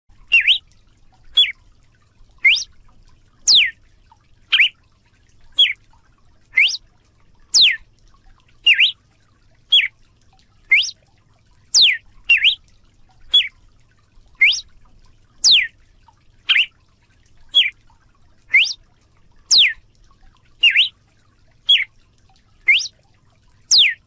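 Red-cowled cardinal (galo-de-campina) singing: a steady run of clear, whistled notes, about one a second, each a quick sweep that alternates between rising and falling in pitch.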